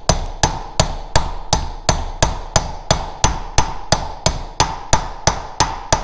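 Hammer steadily tapping a metal part that is held upright on an engine crankcase, about three blows a second, each strike with a short metallic ring.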